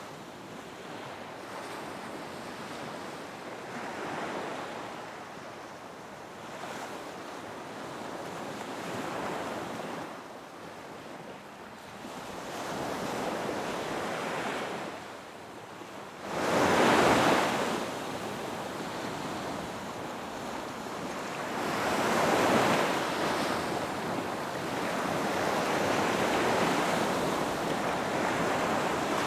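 Ocean waves washing in and out with wind, a rolling hiss that swells and fades every few seconds, the loudest surge about two thirds of the way through.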